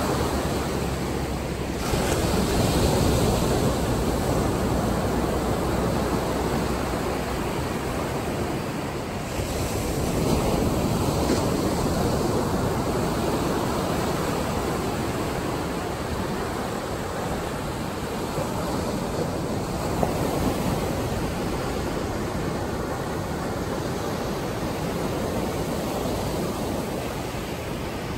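Atlantic Ocean surf breaking and washing up onto a sand beach, a steady rushing that swells louder twice as waves break.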